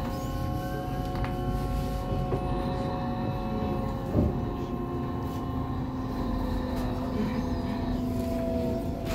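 Cabin sound of a PKTS-6281.00 Admiral trolleybus under way: the electric traction drive gives a steady whine in several tones over a constant road rumble. There is a single knock about four seconds in.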